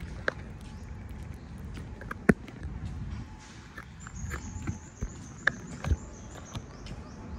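A cat rubbing and bumping against the phone right at the microphone: a low rumble of contact noise with scattered taps and knocks, the loudest a little over two seconds in.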